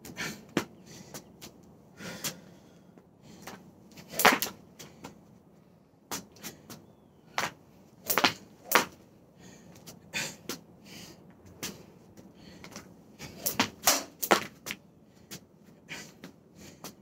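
Jump rope session on a wooden porch deck: sharp slaps and thumps of the plastic rope and feet striking the boards, coming irregularly about one or two a second, with short pauses between runs.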